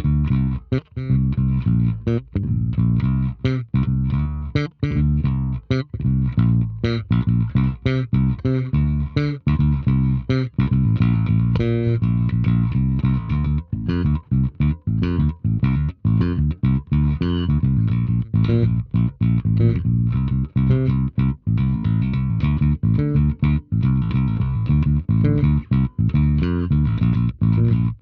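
Electric bass with two split-coil P-bass pickups played fingerstyle with both pickups blended, through an Ampeg SVT amp simulator. It plays a continuous line of quick plucked notes, several a second.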